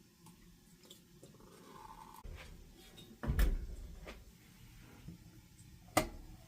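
Clunks and clicks of a laundry appliance door being handled: a heavy thump about three seconds in and a sharp click near the end, with a short faint tone earlier on.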